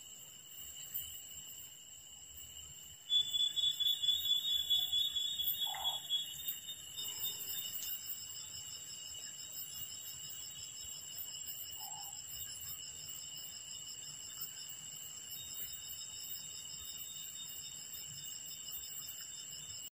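Night-time forest chorus of insects and frogs: steady high-pitched trills throughout, with a louder rapidly pulsing call starting about three seconds in and fading over the next few seconds.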